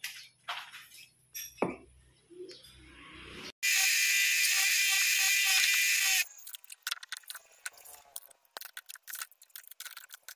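Light metal clinks, knocks and rattles as a steel pipe is handled and fitted into a lathe's four-jaw chuck. In the middle comes a loud, steady hissing noise with a few held tones, about two and a half seconds long, that starts and stops abruptly.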